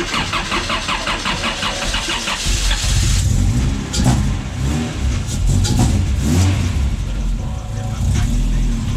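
Honda H22A four-cylinder engine cranking on the starter with a fast rhythmic chatter, catching about two and a half seconds in, then revving up and down a few times before settling.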